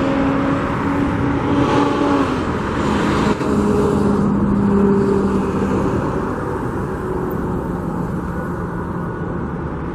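Road traffic: motor vehicles passing with a steady rush of engine and tyre noise, and an engine hum that shifts in pitch.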